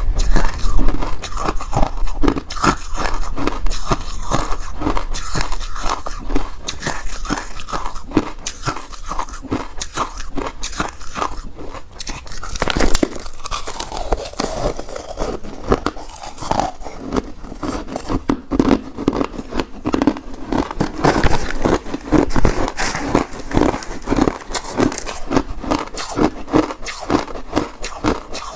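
Refrozen crushed ice being bitten and chewed close to the microphone: a steady run of loud, crisp crunches and crackles, several a second.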